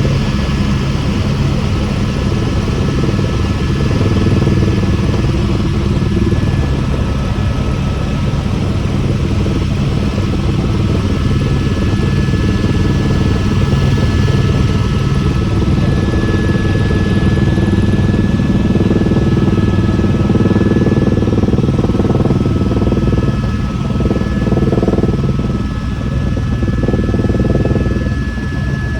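Helicopter running steadily: a loud, even engine and rotor drone with a thin high whine over it.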